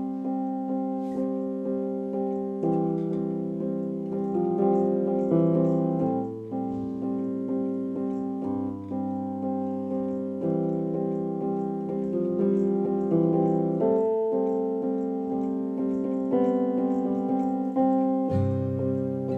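Instrumental piano music: a keyboard playing steady repeated chords in an even pulse, with low bass notes coming in at times.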